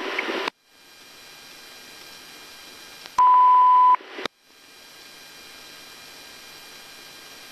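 A single steady high beep, a little under a second long, on a police radio channel, with faint radio hiss around it. A burst of louder static cuts off about half a second in.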